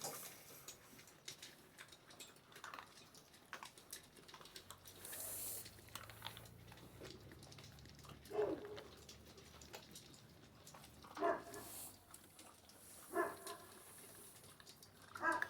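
Central Asian Shepherd puppies giving four short, faint yips or whines a few seconds apart, over light scattered clicks.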